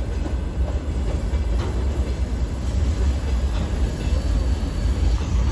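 Freight train of open-top gondola wagons rolling past, its wheels rumbling steadily on the rails.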